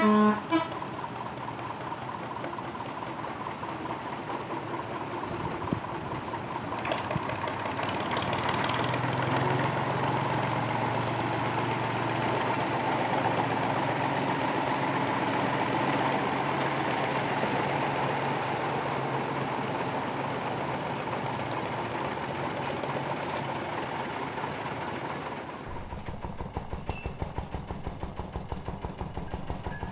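Small narrow-gauge internal-combustion locomotive engines running: one grows louder over several seconds and then eases off. Near the end another small locomotive engine idles with a steady, even beat.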